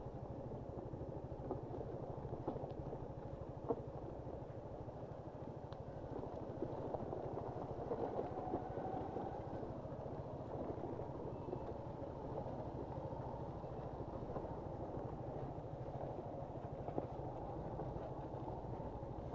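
Suzuki Gixxer SF 155's single-cylinder engine running steadily while the motorcycle rides over a rough, stony off-road track, with continuous rattling and a few sharp knocks from the bike bouncing over the surface.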